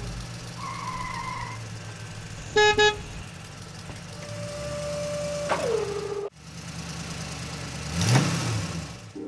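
Car sound effects for a toy car: an engine running steadily, two quick honks of a car horn about two and a half seconds in, and near the end a car rushing close past, rising and then falling in pitch.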